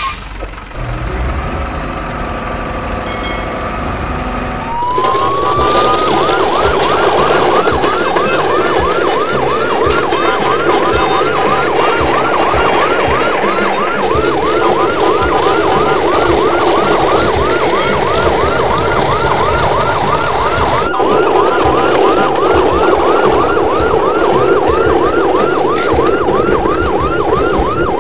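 An electronic yelp siren, like a police or ambulance siren, winds up in pitch about five seconds in and then wails up and down rapidly and steadily, several cycles a second.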